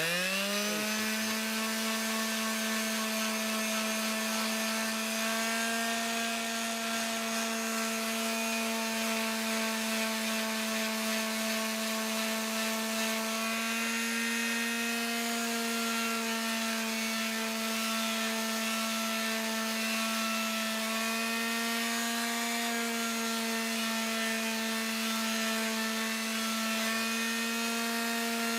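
Electric sander with 120-grit paper spinning up and then running steadily, a constant motor hum with small shifts in pitch as it works over the wooden clips.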